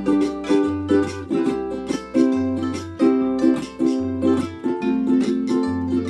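Ukulele band playing an instrumental passage: several ukuleles strum chords in a steady rhythm over a bass line that alternates between two low notes, with no singing.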